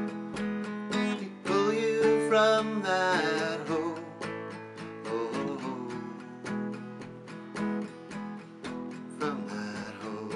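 Acoustic guitar strummed steadily in an instrumental close, with a man's voice holding a sung note for a couple of seconds near the start.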